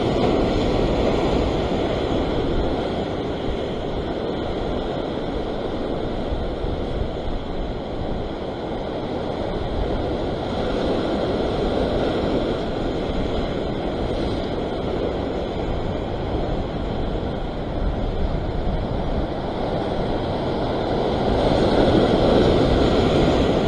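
Sea surf washing and breaking against a rock ledge, a continuous rushing wash, with wind buffeting the microphone; the surge swells louder near the end.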